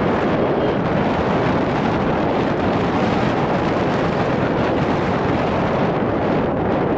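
Wind blowing across the microphone: a steady, loud rush of noise with no breaks.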